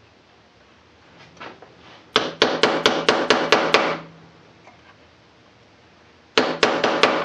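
Hammer rapping a stalled, burnt-out Dremel motor clamped in a vise, to jolt it into turning. About two seconds in comes a fast run of about eight sharp strikes; after a pause, a second run of about five strikes near the end.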